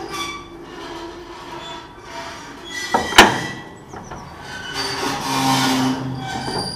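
Welger AP41 baler's knotter and drive mechanism moving slowly, metal parts squealing and creaking, with one loud sharp clank about three seconds in.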